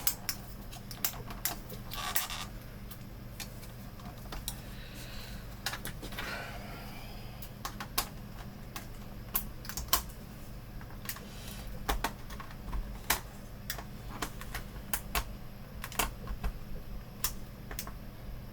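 Irregular sharp plastic clicks and short scrapes as a plastic monitor frame is pried apart and its snap clips come loose.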